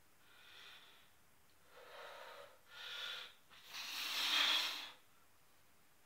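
A man breathing hard with the exertion of chin-ups: four heavy breaths, each louder than the last, the loudest and longest a forceful exhale about four seconds in.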